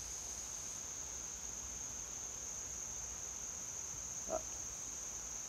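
Steady high-pitched drone of an insect chorus outdoors, with one short pitched blip about four seconds in.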